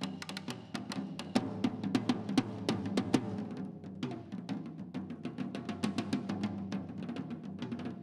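Percussion duo playing a fast pattern of stick strokes on snare drum and tom-toms, the drums ringing with a low tone. Some notes glide in pitch as a stick is pressed into a drumhead while the other hand strikes.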